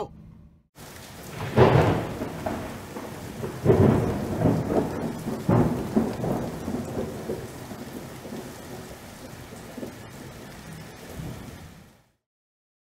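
Thunder rumbling over steady rain: three rolls of thunder about two seconds apart, then the rain slowly fading before it cuts off near the end.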